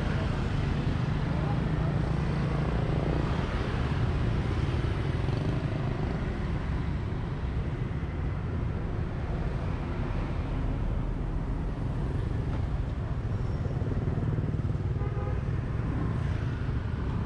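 Steady road-traffic rumble of passing motorbikes and cars, with faint voices in the background.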